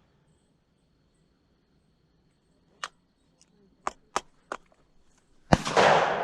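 A single shotgun shot near the end, its report fading away slowly afterwards. Before it come a few scattered sharp clicks.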